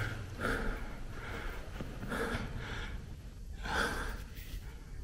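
A man breathing heavily, several audible breaths about a second apart.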